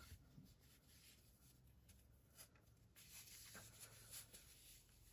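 Near silence, with faint rustling of a black cloth pen sleeve being untied and opened by hand, and a couple of faint ticks.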